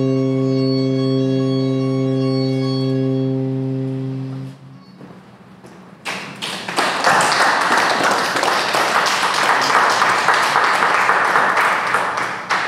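Saxophone holding one long low note that stops about four and a half seconds in. After a short pause, the audience applauds until near the end.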